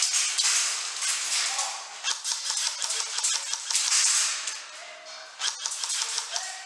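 Airsoft guns firing in rapid bursts: a dense run of sharp, high-pitched clicks, loudest at the start and again about four seconds in.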